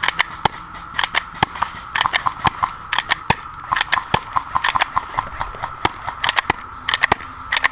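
Airsoft guns firing: irregular sharp pops, some single and some in quick runs of several shots.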